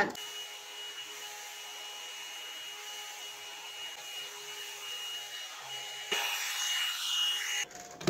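Revlon One Step hot-air brush dryer running on its hottest setting: a steady rush of air over a high motor whine. About six seconds in it grows louder and hissier as the brush works through the hair, then cuts off suddenly near the end.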